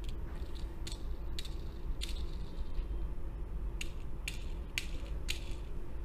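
Small die-cast toy jeep with plastic wheels being handled in the fingers: a series of about seven light, sharp clicks and rattles as it is turned over and its parts knock.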